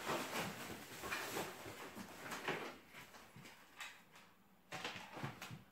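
Irregular rustling, scraping and light knocks of power-supply adapters and their tangled cables being pulled by hand out of a package, busier at first and quieter in the middle.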